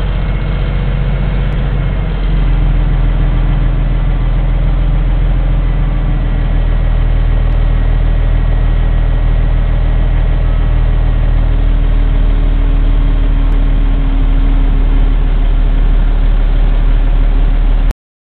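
Heavy truck's diesel engine running steadily close by, a low hum with a step up in loudness about two seconds in; the sound cuts off abruptly just before the end.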